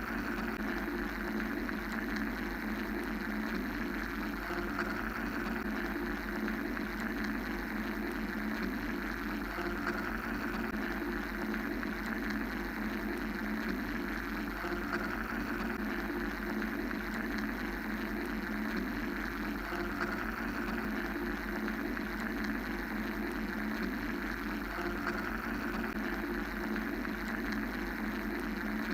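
Steady machine-like whirring noise for sleep, even and unbroken, its higher hiss slowly swelling and easing every few seconds.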